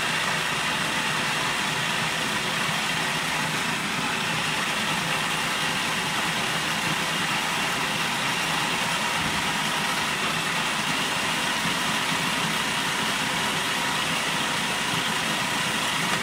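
Electric food processor running steadily at speed, pureeing cooked fennel while olive oil is poured in through the feed tube to smooth it.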